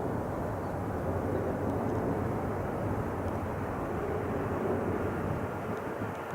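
Jet airliner engines running, a steady rushing noise that eases slightly near the end.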